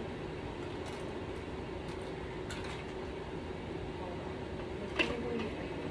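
Steady room hum with a few faint light clicks, and one sharper click about five seconds in.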